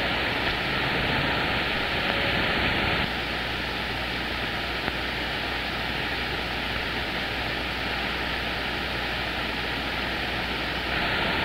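CB radio receiver hiss: steady band noise on the 11-metre band with no signal coming through, a little quieter after about three seconds.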